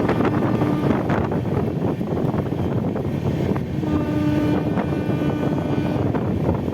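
Jan Shatabdi Express coach running at speed, heard from its doorway: a steady rumble of wheels on the track, mixed with wind on the microphone. Scattered knocks come through, and a steady tone rises out of the noise for about two seconds after the middle.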